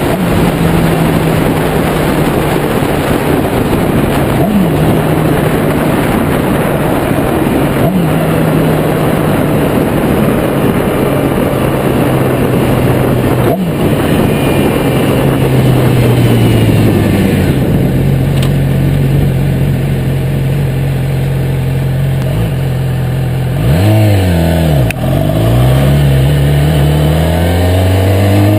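Yamaha YZF-R6 inline-four engine running at steady cruising revs under heavy wind noise on the microphone. About two-thirds through the revs fall, dip and rise sharply a few times, then climb again near the end.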